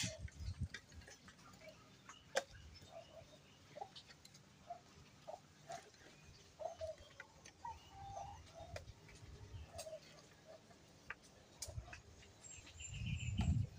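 Short lengths of dry firewood knocking against each other now and then as they are picked up and stacked by hand, with birds calling in the background and a short high trill near the end.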